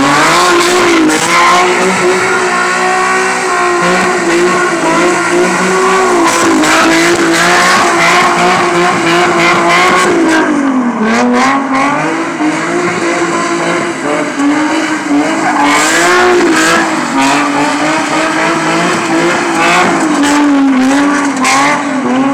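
Infiniti G35's 3.5-litre V6 revved up and held at high revs while the car spins, its tyres squealing. The revs dip briefly a few times, most deeply about halfway through.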